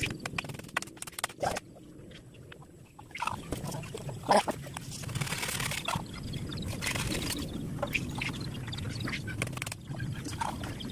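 Chickens clucking in short, scattered calls, mixed with clicks and rustling.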